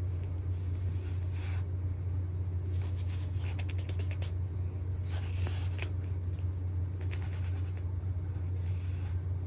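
A steady low hum throughout, with soft rustling and a quick run of small kiss smacks about three to four seconds in.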